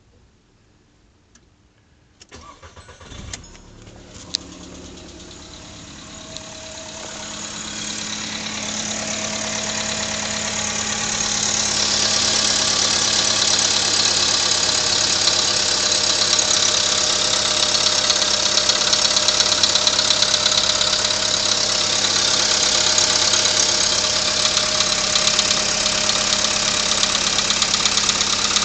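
Volkswagen 1.6 CFNA four-cylinder petrol engine cold-started: the starter cranks for about a second, the engine catches, and it settles into idle with a fast, even knock that grows louder over the first ten seconds and then holds steady. This is the knock the engine makes when cold.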